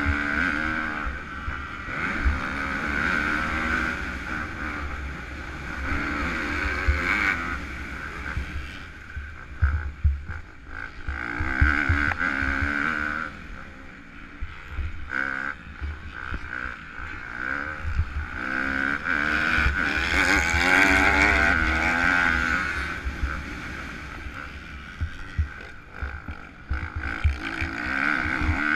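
Kawasaki KX250F four-stroke single-cylinder motocross engine under race riding, its revs rising and falling over and over as the throttle is opened and shut, loudest about two-thirds of the way through. Wind buffets the helmet-mounted microphone throughout.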